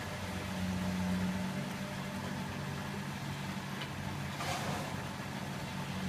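Bendix 7147B front-loading washing machine in its wash phase: the drum motor hums steadily as the drum turns the wet laundry in sudsy water, with a brief swish about four and a half seconds in.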